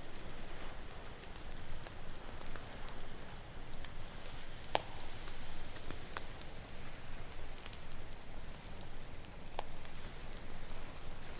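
Campfire crackling, with scattered sharp pops (two louder ones, about five and ten seconds in), over a steady low wash of ocean waves on the shore.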